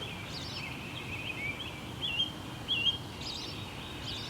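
Birds singing their morning song: a run of quick chirps and short slurred whistles, over a steady background hiss.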